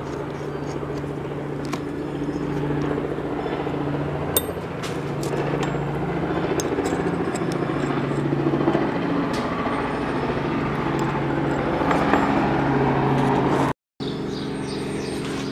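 An engine or motor running steadily with a low, slowly wavering hum. A few light metallic clicks come from rivets and a rivet-setting tool being handled on a workbench.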